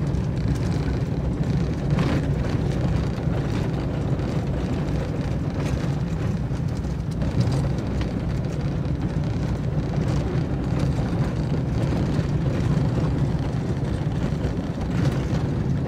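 Pickup truck rolling down a gravel road, heard from inside the cab: a steady low rumble of engine and tyres on gravel, with a few faint clicks.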